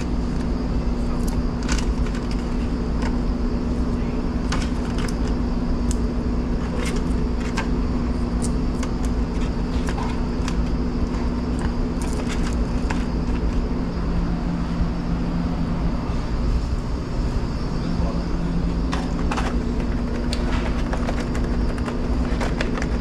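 Steady hum of commercial kitchen equipment running, with scattered light clicks of small plastic sauce cups being handled and packed into a foil tray.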